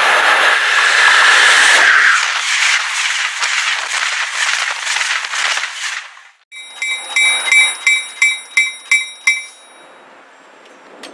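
A train runs past close by with a loud rushing and fast rhythmic wheel clatter. After a sudden break, a commuter train's bell rings about three strikes a second for three seconds, then stops.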